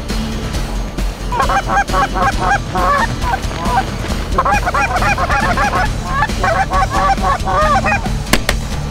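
Canada geese honking in fast runs of short calls, each rising and falling in pitch, with a brief break about halfway.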